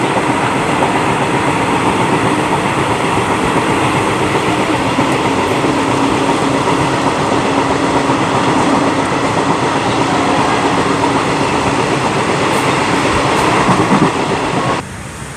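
Diesel passenger train running along the track, heard from inside a carriage with its windows open: a loud, steady noise of wheels on rails and running gear. It cuts off suddenly near the end.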